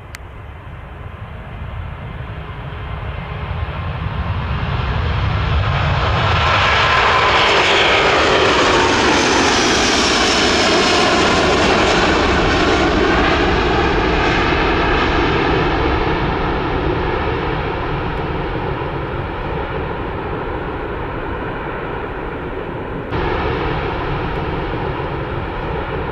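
Airbus A330 jet airliner climbing out after takeoff and passing by. The engine noise builds, is loudest around ten seconds in with whining tones that slide down in pitch as it goes past, then settles into a steady rumble. There is an abrupt jump in the sound a few seconds before the end.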